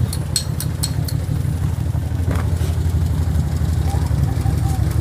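Mitsubishi L100 Minicab's two-cylinder engine idling steadily. A few light clicks in the first second.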